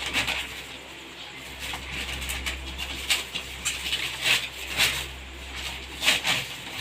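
Packaging crinkling and rustling in irregular short crackles as a gift-wrapped steel basin is unwrapped by hand.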